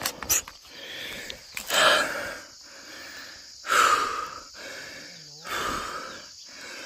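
A person breathing hard, out of breath from climbing a steep hillside: three heavy breaths about two seconds apart, with a few light clicks at the start.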